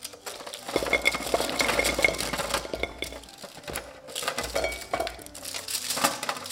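Roasted chestnuts tumbling out of a dish into a ceramic bowl, a dense clatter of hard shells knocking against the bowl and each other. It comes in two pours, with a short lull just past the halfway point.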